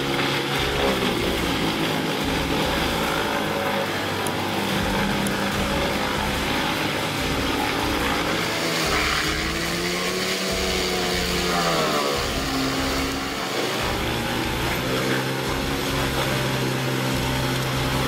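Diesel engine of a Vermeer WC2500XL whole-tree chipper running under load as it chips trees, with the grinding of wood being chipped. About nine seconds in, the engine pitch bends up, then drops sharply near twelve seconds before settling.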